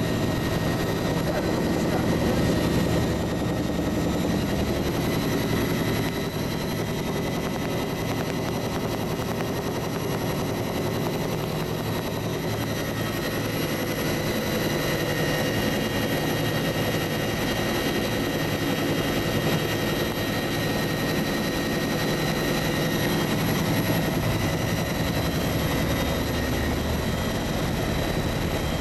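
Bell UH-1H Huey helicopter on final approach: its turboshaft engine gives a steady whine of several high tones over the low rumble of the main rotor, holding an even level throughout.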